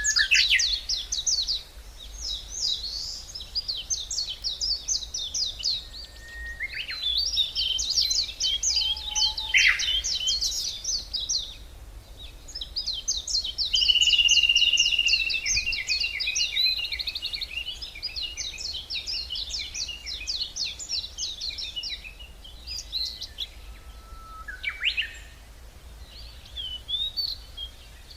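Songbirds singing in a deciduous forest: several long songs of rapid, high, repeated notes, overlapping and pausing between phrases. A faint steady low rumble runs underneath.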